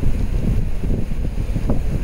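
Heavy rain and strong gusty wind, the wind buffeting the microphone in a loud low rumble over a steady hiss of rain.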